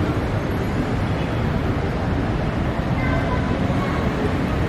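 Steady city street noise: a continuous low rumble of traffic.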